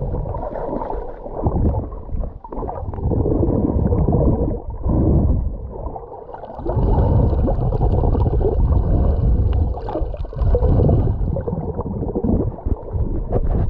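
Sea water churning with wind rumbling on the microphone: a loud, uneven low rush that surges and drops every few seconds. A faint steady high whine runs through the middle stretch.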